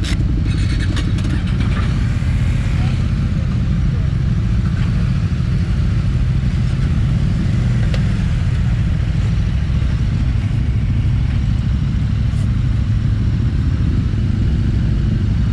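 Steady low engine rumble on a ferry carrying a deck full of motorcycles, with a few light clicks and rattles in the first couple of seconds.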